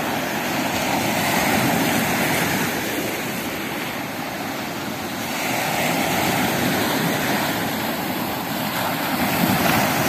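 Small sea waves breaking and washing up a pebble beach, the surf swelling and easing every few seconds.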